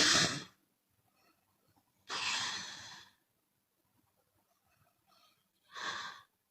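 A woman snoring with her mouth open: the tail of a loud snore at the start, then a long breathy exhale about two seconds in and a shorter breath near the end.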